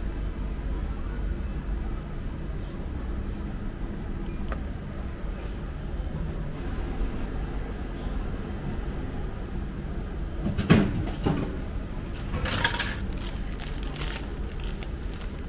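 Vending machine dispensing a plastic-bagged candy apple over a steady low hum: about two-thirds in the item drops into the delivery tray with a loud clatter, and about a second later comes crinkling and rattling as the bag is taken out through the tray flap.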